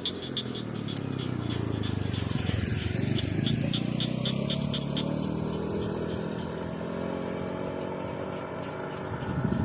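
A motor vehicle's engine passes by, growing louder over the first few seconds and then fading away. Throughout, frogs keep calling in short, high-pitched pulses, about four or five a second.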